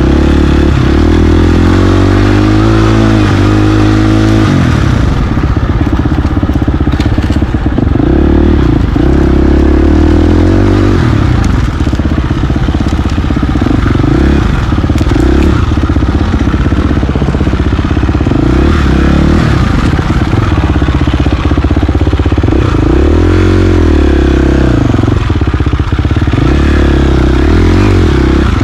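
KTM 350 XC-F dirt bike's four-stroke single-cylinder engine running under a constantly changing throttle, its pitch rising and falling again and again.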